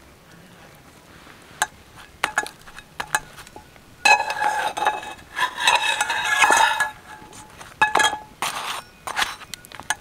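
Flat metal spatula clinking and scraping against a frying pan while a roti is turned and pressed: a few light taps, then a ringing metallic scrape about four seconds in that lasts some three seconds, then several sharp clinks near the end.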